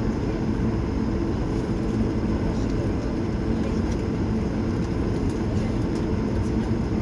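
Steady low cabin rumble of an Airbus A220 taxiing, its Pratt & Whitney PW1500G geared turbofans running near idle.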